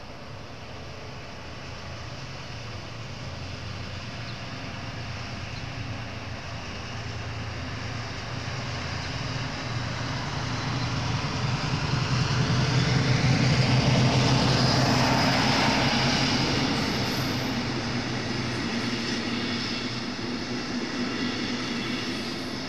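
DB class 219 diesel-hydraulic locomotive, with its two diesel engines, running under power as it hauls a regional train past. The steady low engine sound grows louder to a peak a little past halfway, then eases off as the coaches roll by.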